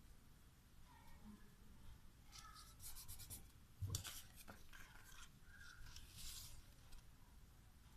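Faint paper rustling and handling as glued paper squares are pressed onto a folded chart-paper strip, with a soft knock about four seconds in.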